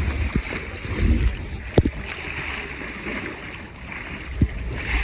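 Water washing against a small sailing dinghy's hull as it moves through choppy sea, with wind buffeting the microphone. Two sharp knocks come about two seconds and four and a half seconds in.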